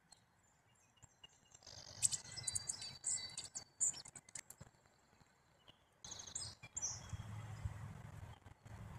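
Small songbirds chirping: a run of quick, high chirps about two seconds in and another shorter run around six seconds, over a low background rumble.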